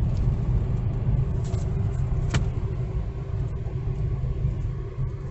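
Moving car heard from inside its cabin: a steady low engine and road rumble with a faint constant hum above it, and a single sharp click about two and a half seconds in.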